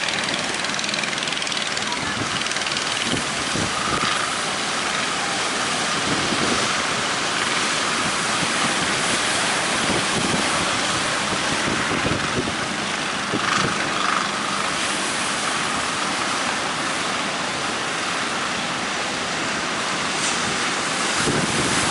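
Rough sea: wind buffeting the microphone over steady surf and waves, with the faint sound of a boat's engine under it.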